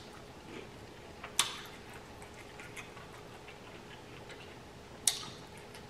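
Close-miked chewing and mouth sounds of a person eating, with two sharp clicks, one about a second and a half in and one near the end, and faint ticks between.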